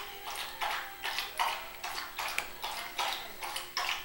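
Masking tape rubbing and crinkling as a hand rolls and presses it around a fishing rod's reel seat: a quick series of short scratchy rustles, about three a second. A faint steady hum runs underneath.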